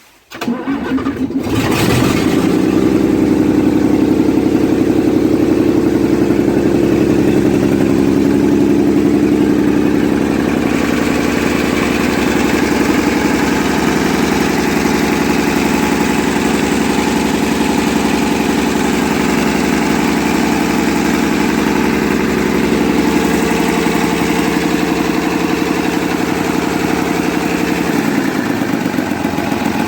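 Scania 111 truck's 11-litre six-cylinder diesel engine started, catching within about a second and then running loud and steady at fast idle, its injection timing freshly set and its timing gear train exposed. Near the end the engine note shifts lower.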